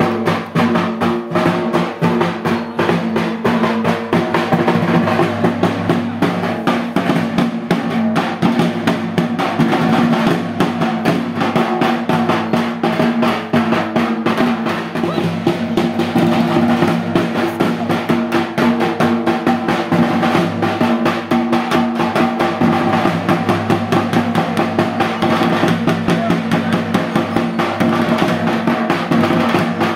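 Fast, unbroken drumming on a dhol and a plastic barrel drum, played as accompaniment to a masked folk dance.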